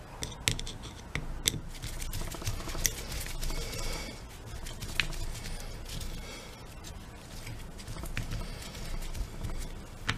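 Screwdriver tip scraping and clicking against the wire terminals and switch parts inside an angle grinder's open housing: scattered sharp metal clicks with light scraping between.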